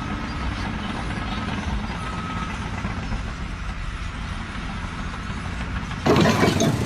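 An engine running steadily with a low rumble. About six seconds in, a louder, noisier sound cuts in.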